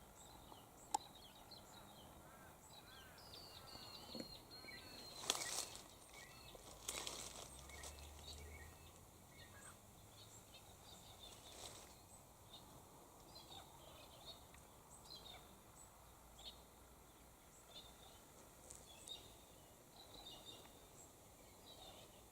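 Faint, scattered bird chirps and short calls over quiet outdoor background, with two brief louder crackles about five and seven seconds in.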